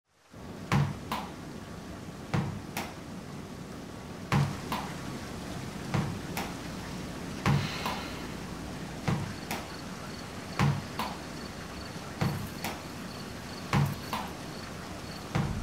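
A slow, even rhythm of double thuds, two sharp knocks about a third of a second apart, repeating about every second and a half like a slow heartbeat, over a steady faint hiss. A faint high whine joins about halfway through.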